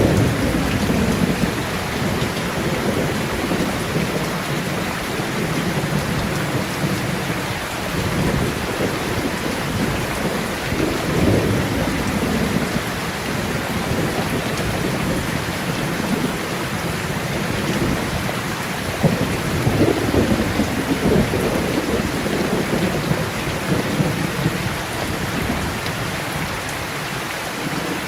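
Steady heavy rain with low rolling thunder that swells and fades several times.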